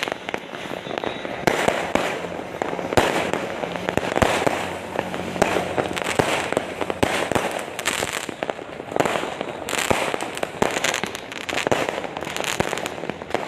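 Many fireworks and firecrackers going off at once: a dense, unbroken run of bangs and crackles with no pause.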